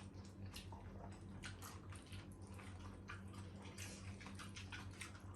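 Faint chewing and mouth-smacking of people eating: a string of short, irregular clicks over a steady low hum.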